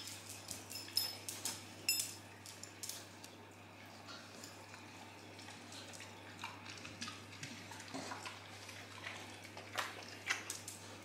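Dog's claws clicking on a tiled floor as it walks up, then softer scattered ticks and snuffling as it sniffs and eats a scrap of plant-based bacon, over a low steady hum.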